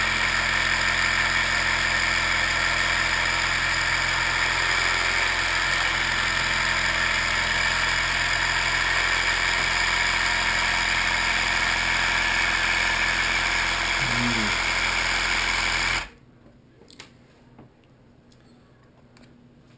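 The small battery-powered motor of a Dr. Dreadful Alien Autopsy toy candy kit running with a loud, steady whir, switched on to churn the alien's "stomach acid"; it cuts off suddenly near the end, leaving faint clicks.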